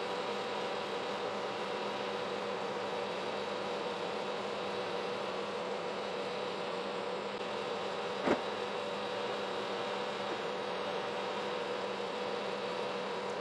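Kearney & Trecker horizontal milling machine running a large slitting saw blade through a 10-inch CPVC round under hand feed: a steady machine drone with several held tones. A single sharp click about eight seconds in.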